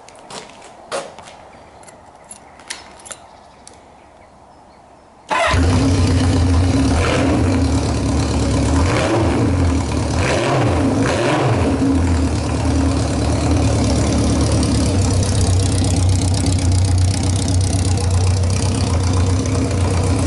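A few sharp clicks, then about five seconds in the 1977 Honda CB550F's air-cooled inline four bursts into life with no muffler fitted and runs loud and raw. It is revved a few times, rising and falling, then settles into a steady cold idle.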